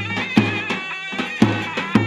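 Turkish folk halay dance tune: a shrill, reedy double-reed pipe plays an ornamented melody over a bass drum beating a steady dance rhythm, about two strong beats a second.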